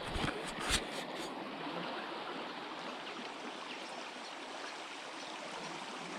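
Small creek flowing: a steady rush of running water, with a few short clicks or knocks in the first second or so.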